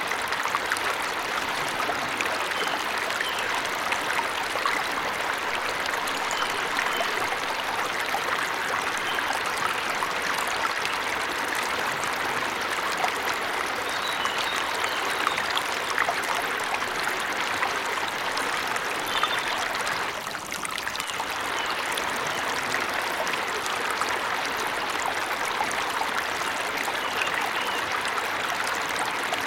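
Waterfall running steadily, a continuous rush of falling water, with a few faint bird chirps here and there. The rush dips briefly about twenty seconds in.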